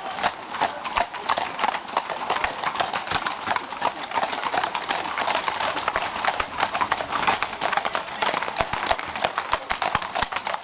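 Many horses' hooves clip-clopping at once, a dense irregular clatter of hoof strikes.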